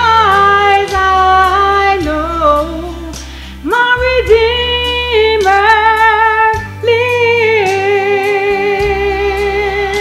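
A woman singing a gospel solo, holding long notes and sliding between pitches, with a short break about three and a half seconds in. Under her voice runs an instrumental accompaniment with a deep bass line that changes note every few seconds.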